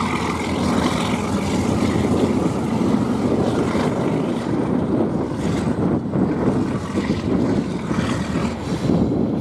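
Twin FPA diesel locomotives running with a heavy, steady rumble as the train moves.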